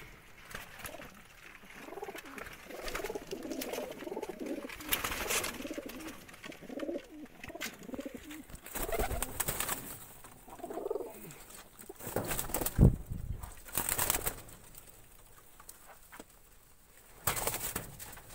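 Domestic pigeons cooing, a run of low, repeated rolling coos through the first half. A few sharp knocks and rustles come around the middle and near the end, the loudest a little past the middle.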